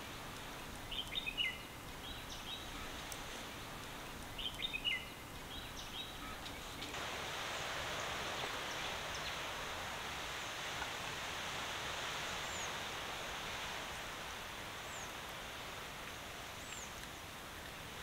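Outdoor ambience: small birds chirping, two clusters of short chirps in the first five seconds, over a steady hiss that gets louder about seven seconds in, with faint high chirps now and then after that.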